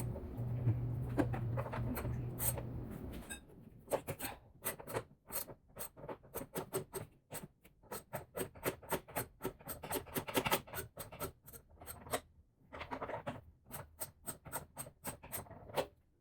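Socket ratchet clicking in quick runs of strokes, undoing the 14 mm nuts of a Mazda Miata's suspension top mount, with short pauses between runs. A low hum fades out about three seconds in, just before the clicking starts.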